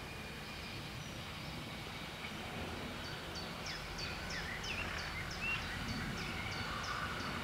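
Birdsong in open country: a bird repeating a short high note about three times a second from about three seconds in, with a few other gliding calls. Underneath, a faint low rumble slowly grows louder: a distant diesel train approaching.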